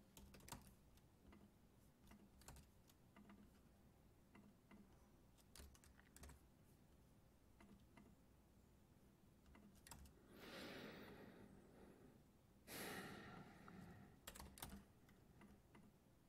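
Faint typing on a computer keyboard with scattered clicks, and two short soft rushing noises about ten and thirteen seconds in.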